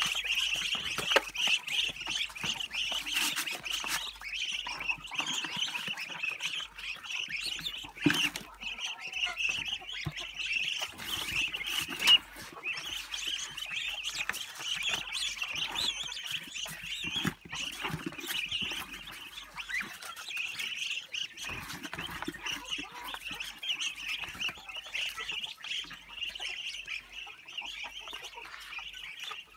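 A flock of Muscovy ducklings peeping continuously and densely as they feed, with scattered sharp taps and clicks among them.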